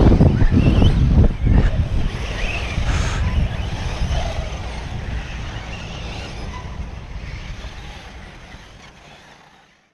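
RC cars racing on a dirt track: a few faint rising and falling motor whines over a steady low rumble, the whole sound fading out gradually to silence near the end.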